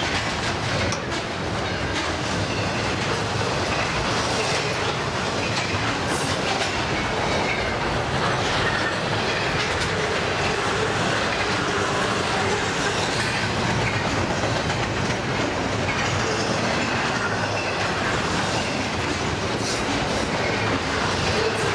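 Double-stack intermodal freight train's well cars rolling past: a steady rumble of steel wheels on rail, with scattered clicks of the wheels over rail joints.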